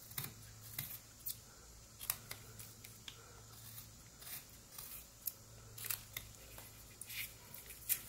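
Pocket knife blade whittling an Eastern White Pine block: a string of short, crisp scraping cuts at an uneven pace, roughly one every half second, over a faint steady low hum.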